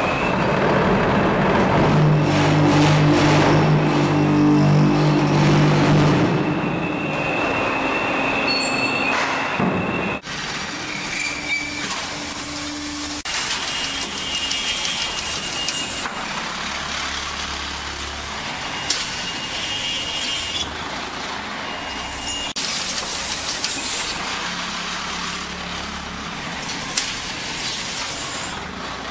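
Rometa concrete block and paver making machine running: a loud, steady mechanical din with a strong low hum from about two to six seconds in. About ten seconds in it changes to a lighter, hissier machine noise as the conveyor carries out freshly pressed pavers.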